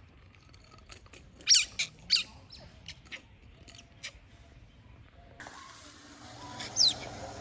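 Otter giving short, high-pitched squeaking chirps that fall in pitch, a few separate calls, among light clicks and taps.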